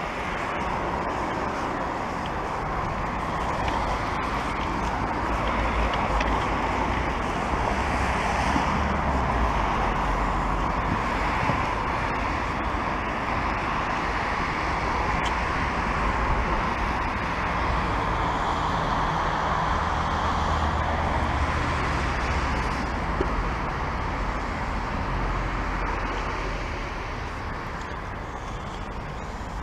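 Longboard wheels rolling over asphalt and paving slabs: a steady rolling roar with a low rumble that swells and eases.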